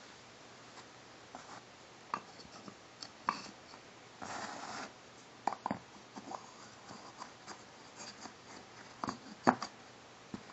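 Wooden toy train track pieces clicking and knocking together as they are handled and fitted, in a scattered handful of light taps with the loudest knock near the end. A short rubbing sound comes about four seconds in.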